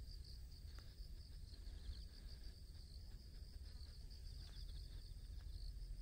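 Insects trilling steadily at a high pitch over a faint low rumble.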